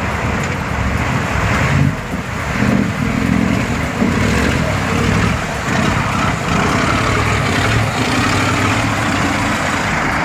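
Heavy vehicle engine running under load, with a steady rumble that rises and falls slightly.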